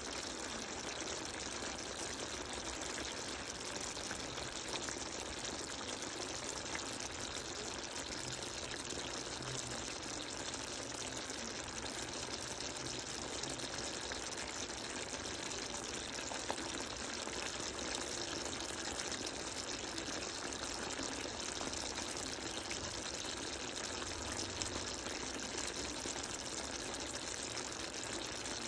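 Thick sauce bubbling and sizzling around glazed chicken wings as they simmer: a steady hiss with a few small pops.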